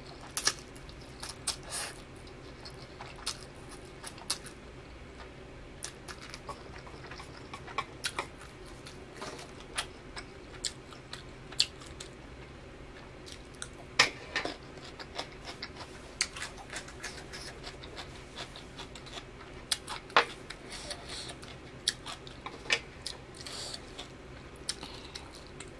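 Close-up eating sounds: chewing with many scattered wet mouth clicks and smacks at irregular intervals over a steady low hum.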